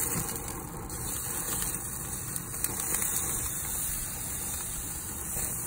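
Steady sizzle of a thick bone-in ribeye searing on the hot grates of a gas grill on high heat, just after being flipped, with a low steady rumble underneath.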